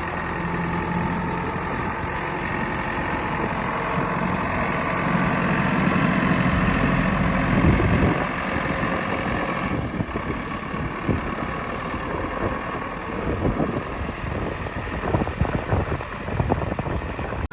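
Heavy diesel machinery engine running steadily, working harder and louder for a couple of seconds midway. In the second half it is joined by a run of irregular knocks and clatter.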